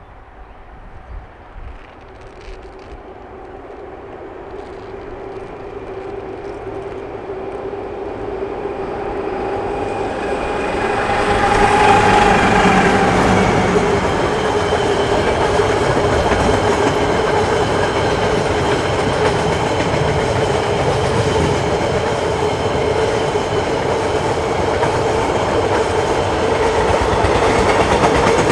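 KiwiRail EF-class electric locomotive and its train approaching, growing louder over about twelve seconds, then running past loud and steady with a steady hum over the rumble of the train.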